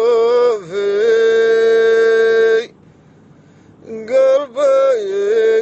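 A solo voice singing a cappella, with a long held note and wavering, ornamented turns. It breaks off for about a second midway, then starts again with quick ornamented notes.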